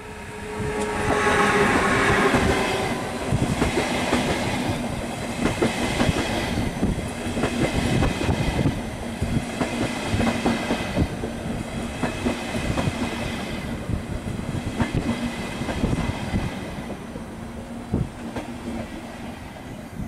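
ÖBB Railjet train hauled by a Siemens Taurus electric locomotive (1216 019) running past at close range. The locomotive passes with a whine about a second in, then the coaches' wheels clatter over rail joints and points in a long run of clicks that eases off near the end.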